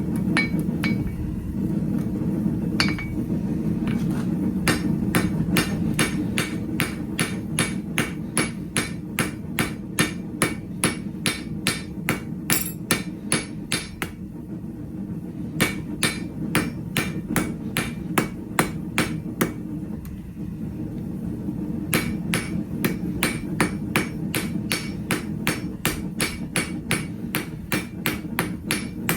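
Hand hammer forging 3/8-inch square steel stock on an anvil: a long run of ringing blows at about three a second, with two short pauses. A steady low rumble runs underneath.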